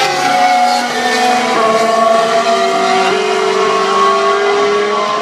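A 2016 Formula 1 car's turbocharged 1.6-litre V6 running hard past the grandstand. Its engine note holds steady and then drops in pitch in steps about one and a half, two and a half and three seconds in.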